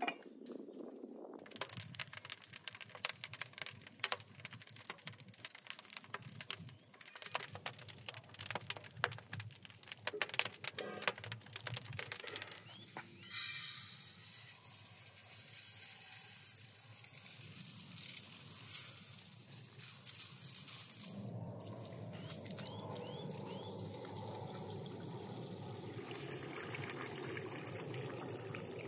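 Dry long-grain rice poured from a glass jar into a metal bowl, a steady hiss lasting about eight seconds, after many seconds of scattered clicking and rattling. Then water from a hose runs into the bowl of rice, a lower steady splashing.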